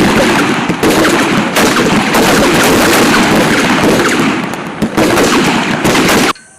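A line of rifles firing together, the shots overlapping into a dense, continuous crackle of gunfire that cuts off suddenly near the end.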